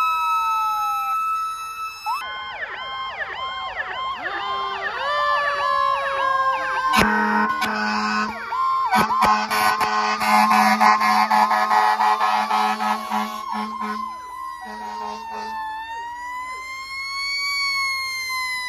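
Several fire engine sirens sounding over one another, mixing slow rising and falling wails with fast yelps and rapid warbles, while the fire trucks drive past. From about 7 s to 15 s a low, steady horn blares in long blasts under the sirens. Near the end a single slow wail rises and falls.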